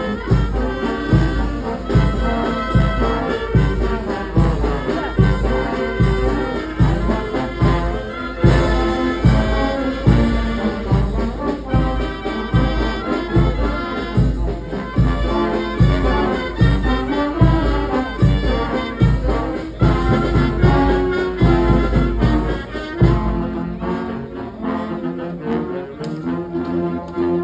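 Street brass band playing: trumpets and trombones over a steady bass drum beat of about two strokes a second. Near the end the drum drops out and the horns carry on more softly.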